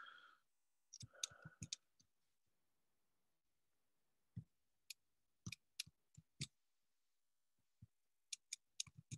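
Faint clicks of a computer mouse and keyboard while a link is pasted into a chat, coming singly or in small runs with pauses of a second or more between them.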